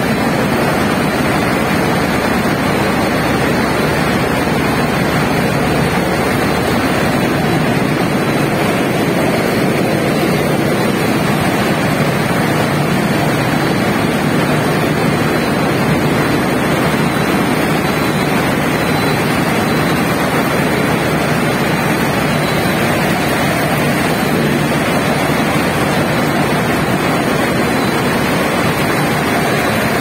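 Sonalika combine harvester running, its engine and belt-driven mechanisms giving a loud, steady mechanical noise heard close up at the machinery.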